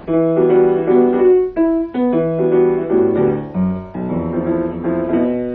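Background music on a keyboard instrument, with several notes sounding together and changing about every half second.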